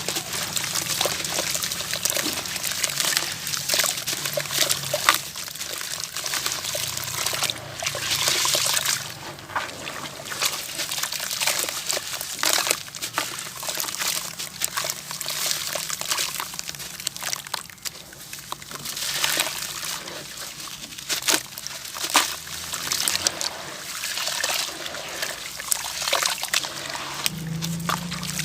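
Gritty, crunchy heart-shaped pieces crumbling in water: many small wet crackles and crunches mixed with trickling and sloshing water.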